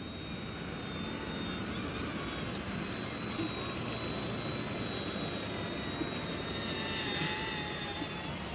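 Small ERA C159 remote-control helicopter in flight: a steady high-pitched electric motor and rotor whine over a rushing noise, the whine shifting slightly in pitch in the last couple of seconds.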